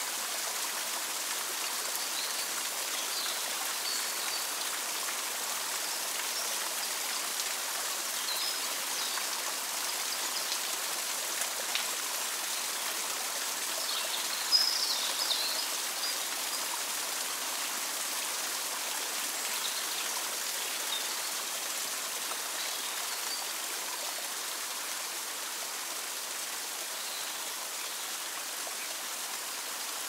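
Steady rush of a small stream and waterfall, with short high bird chirps now and then, the loudest about halfway through.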